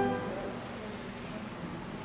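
Church organ chord released at the start and dying away in a reverberant room, followed by a short pause of low room noise between phrases.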